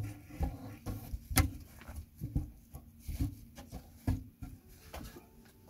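Irregular knocks, thumps and scuffs of a person moving about among logs, with rustling of clothing. The loudest knocks come right at the start and about a second and a half in.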